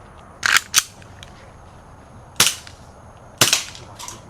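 BB gun firing: four sharp cracks, two close together in the first second, then two more about a second apart.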